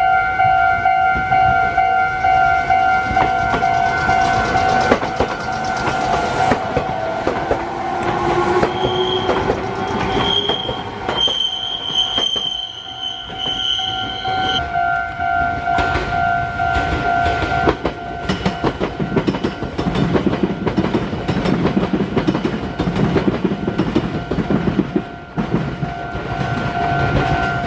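Japanese level-crossing warning bell ringing in a steady repeating pattern as a Meitetsu 2000-series μSKY train passes slowly. A rising whine comes in around eight seconds, and a shrill high tone sounds from about nine to fifteen seconds. In the second half the wheels clatter over the rail joints.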